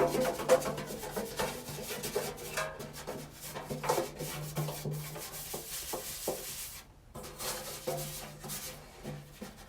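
Irregular rubbing and scraping with small knocks, the sound of lint being scrubbed off the inside of a disassembled clothes dryer. A low hum comes and goes throughout.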